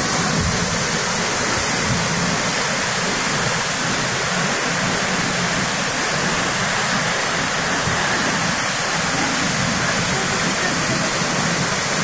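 Pailón del Diablo waterfall: a large volume of water plunging into a misty gorge, a steady, loud rush of falling water.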